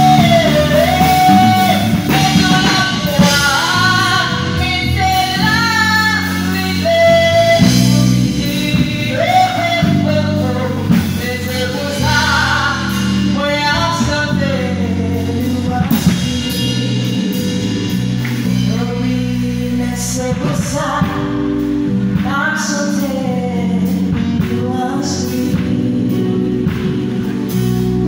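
Haitian Creole gospel song sung by women's voices over a band accompaniment with bass, guitar and drums, the melody moving through long held and gliding notes.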